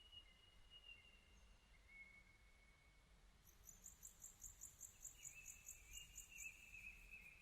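Faint outdoor wildlife calls: a thin, high, drawn-out whistling call near the start and again near the end, and from about halfway a rapid high chirping at about four pulses a second that lasts a few seconds.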